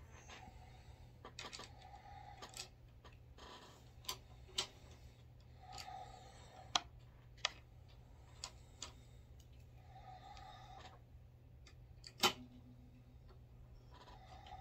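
A Lee C press being worked by hand to flare 300 Blackout brass cases in a Lee flaring die: scattered light clicks and clacks of brass against the press, with a few short sliding sounds between them.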